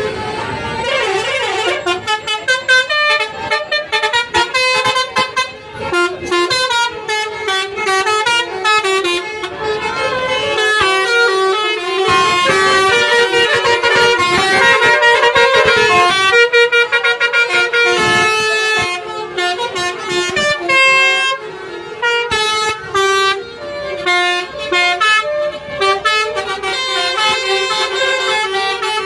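Tour bus 'telolet basuri' melody horn, a set of horn trumpets playing a fast tune of short stepped notes, one phrase after another, with a couple of brief pauses.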